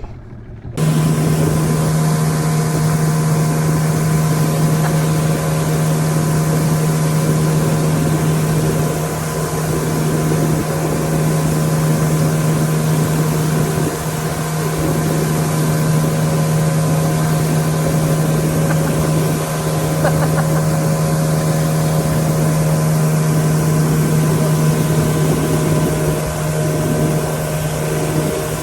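A boat's engine starts abruptly about a second in and then runs at a steady speed, a constant low hum over rushing wind and water noise.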